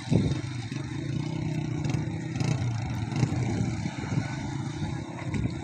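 Floodwater rushing and churning, a steady low rumble.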